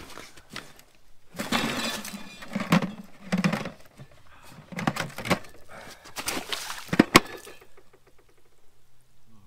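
Boots crunching and squelching in wet snow and slush, a string of uneven steps over several seconds, with two sharp knocks close together about seven seconds in.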